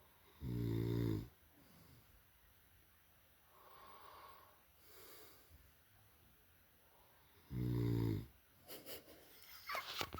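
A man snoring in his sleep, a habitual heavy snorer. Two loud, low-pitched snores come about seven seconds apart, with softer breathing sounds between them, then a few faint clicks near the end.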